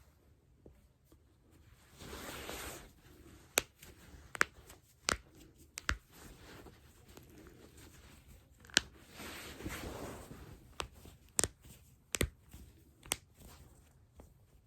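Sharp joint cracks, about eight single pops spaced irregularly, as the back and other joints are cracked, with two longer stretches of soft rustling between them.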